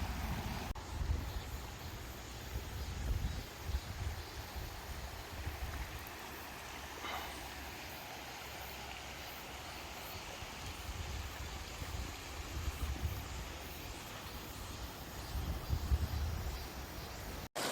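Mountain stream rushing steadily over rocks, with irregular low rumbles on the microphone.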